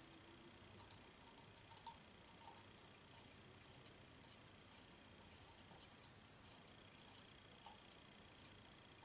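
Faint, scattered small clicks as a precision Phillips screwdriver works tiny screws out of a plastic security-camera housing, with fingers handling the casing.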